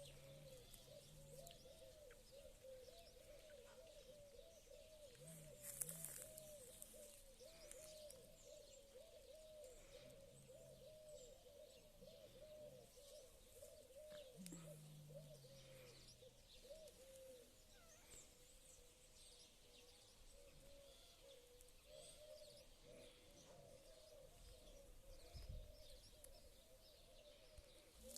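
Faint, continuous warbling animal call: a long unbroken run of short rising-and-falling notes at a steady pitch.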